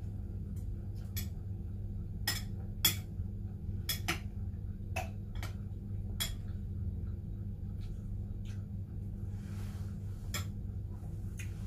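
Metal spoon clinking against a cereal bowl as cereal with milk is scooped and eaten: about a dozen short, sharp clinks at irregular intervals.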